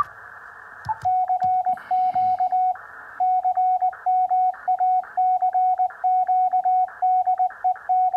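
Elecraft KX2 transceiver sending a pre-recorded CW message, a CQ call with the operator's callsign: its sidetone beeps out Morse code in one steady tone. After a button click and about a second of receiver hiss, the keying starts, with short bursts of band hiss between the characters.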